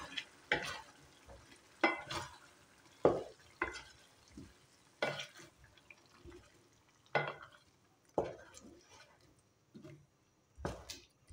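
Wooden spatula stirring a thick mince, potato and tomato mixture in a metal pan, with a short scraping stroke about once a second. A faint frying sizzle runs underneath.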